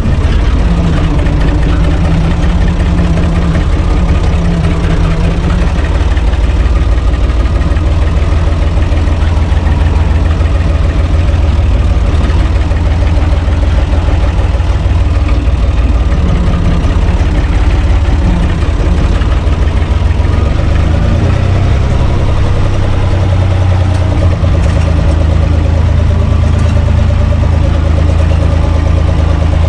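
Universal U445 DT tractor's four-cylinder diesel engine running steadily as the tractor drives along, heard from inside its cab.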